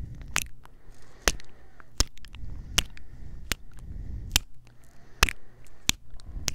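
Close-mouth kisses on a Tascam recorder's microphones: crisp lip smacks, a little more than one a second, with low breath and handling rumble between them.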